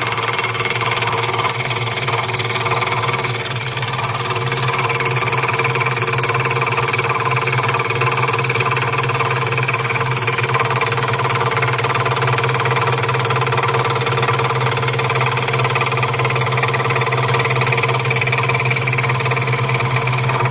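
Electric scroll saw running at a steady speed, its blade sawing through a small block of wood. It stops suddenly at the end.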